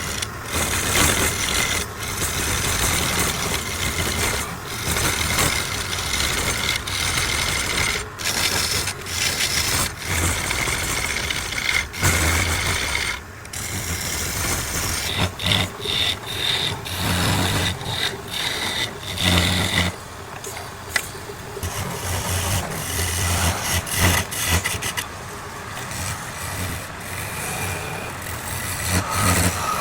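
Wood lathe running while a turning tool scrapes the spinning wood, over a steady motor hum; the cutting noise keeps breaking off briefly and starting again.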